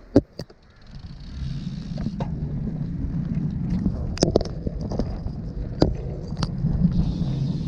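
Folding bicycle being ridden, heard through a GoPro mounted on its handlebar: a few handling clicks at the start, then a steady low rumble of tyres and wind building up from about a second in, with occasional sharp knocks and rattles from bumps.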